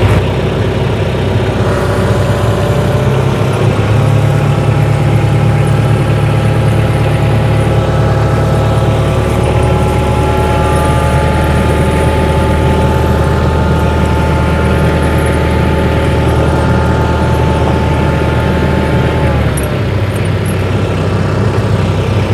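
Tractor engine running steadily as the tractor creeps forward to draw a tire chain up over the tire. A whining tone rises slightly in the first few seconds, holds, and drops away near the end.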